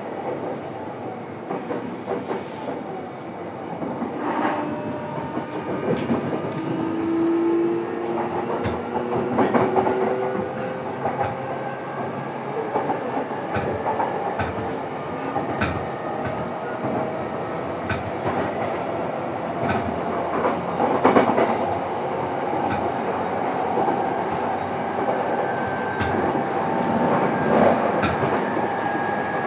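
Running sound inside a JR East E233 series electric train's motor car (MoHa E233-7406): a steady rumble of wheels on rail with scattered clicks over rail joints. Over this runs the traction motors' whine, its pitches slowly rising.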